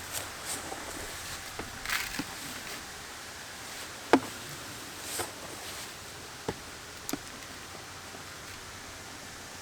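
Ground corn feed being scooped into a bucket: a few separate knocks and rustles of handling, the loudest about four seconds in, over a faint steady hiss.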